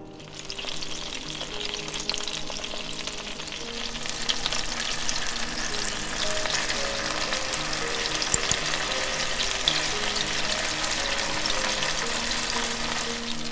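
Food frying in hot oil in a pan: a sizzle with scattered crackles that starts suddenly and grows louder over the first few seconds, with background music beneath.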